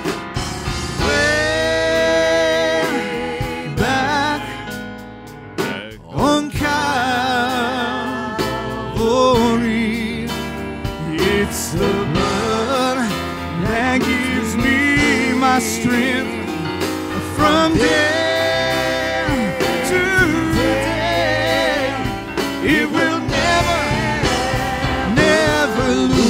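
Live church worship band and singers performing a slow gospel hymn. The sustained sung notes carry a wide vibrato over the band's accompaniment.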